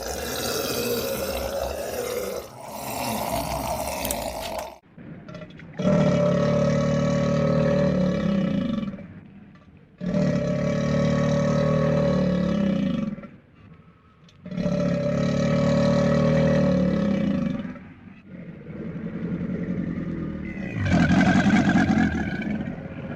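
Crocodile bellowing: deep, pitched calls. Two rougher, hissier calls come first, then three identical calls of about three seconds each follow with short gaps, and another begins near the end.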